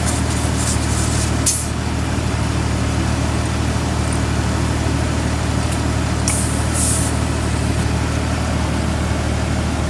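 Steady low motor hum, with two short sharp hisses of air about half a second and six seconds in, as the tire's pressure is checked at the valve stem.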